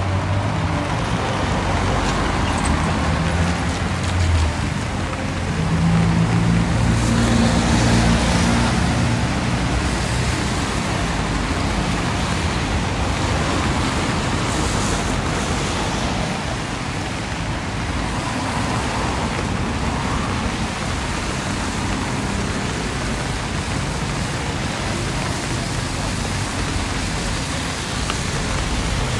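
Road traffic on a wet street: vehicle engines passing over a steady hiss of rain and tyres. One engine passes louder about six to nine seconds in.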